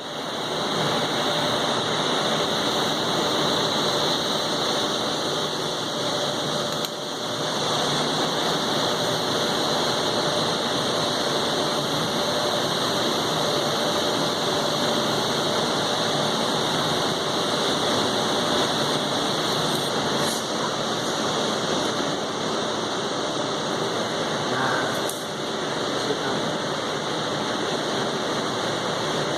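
Steady machine hiss and hum from argon-arc (TIG) welding equipment at work on a steel conveyor belt, with a faint steady tone underneath.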